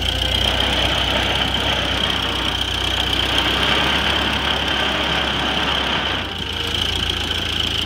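1929 Ford Model A four-cylinder flathead engine idling, heard close up in the engine bay, with a steady high-pitched whine over it. The engine sound dips briefly about six seconds in.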